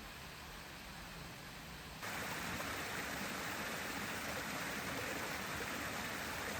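Steady rushing of a mountain creek. It starts as a softer, even hiss and becomes abruptly louder about two seconds in.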